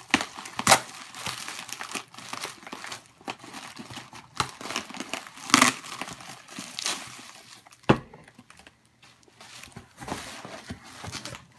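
Packing material being unwrapped by hand from a shipped drinks can: irregular crinkling and rustling, with a few sharp clicks, and a quieter stretch near the end.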